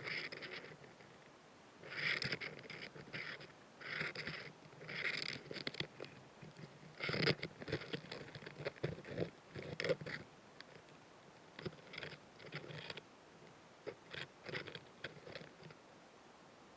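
Narrow-winged mantis chewing, close-miked: irregular clusters of crisp crunching and clicking, each about half a second to a second long, with short pauses between.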